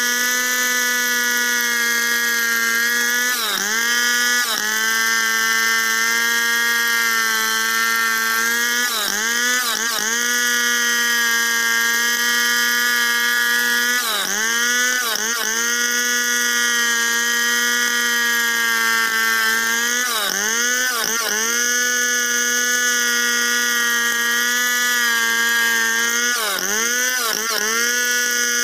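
Stihl two-stroke chainsaw running at full throttle while ripping lengthwise through a log. Its steady high whine dips briefly in pitch and recovers in pairs every five or six seconds as the chain loads up in the cut.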